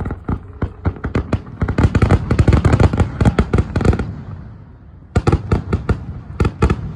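Fireworks display: a fast, dense run of bangs and crackles that grows loudest about two to four seconds in. It dies away briefly just after four seconds, and a fresh series of cracks starts about five seconds in.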